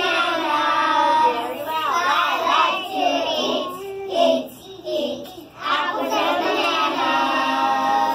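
A group of young children singing a song together, with a short break in the singing around the middle.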